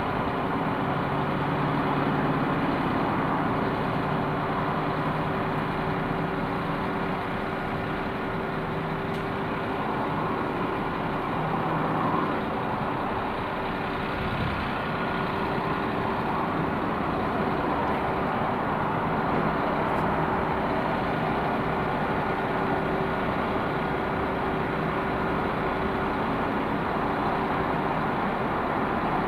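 Class 172 diesel multiple unit standing at the platform with its diesel engines idling, a steady hum with a constant low tone.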